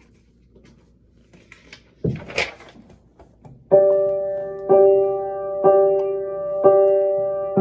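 A brief thump about two seconds in, then a piano chord struck about once a second, each strike left to ring and fade before the next.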